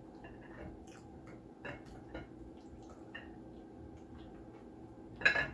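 A person eating with their mouth close to the microphone: scattered soft clicks and wet smacks of chewing, with one louder brief mouth noise near the end.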